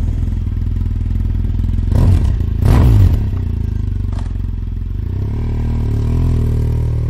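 Two adventure motorcycles riding past on a rocky dirt track, each loudest as it goes by, about two and three seconds in; engine sound carries on steadily afterwards.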